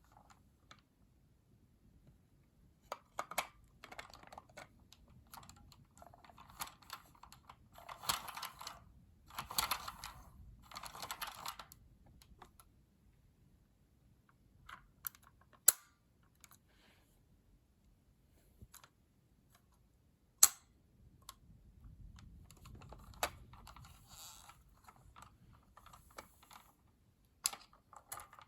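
Hard plastic parts of a vintage Kenner M.A.S.K. Switchblade toy being handled and moved, with irregular clicking and rattling clatter and two sharp, loud clicks around the middle.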